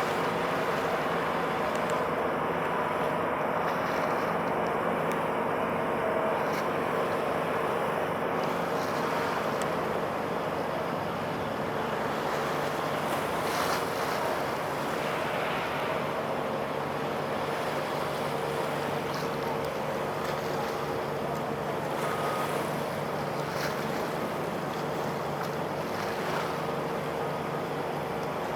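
Steady drone of a ship's engine with a low hum, under a continuous wash of wind and water.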